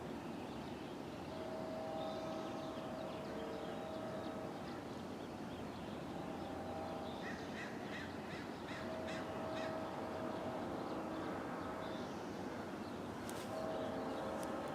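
Distant Sounder commuter train's horn sounding several long, steady blasts with short gaps, crows cawing over it.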